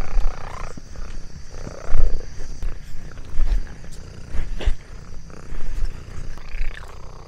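Orange tabby cat giving several short meowing cries that glide in pitch as it walks, over a steady high buzz of insects, with low thumps every second or so.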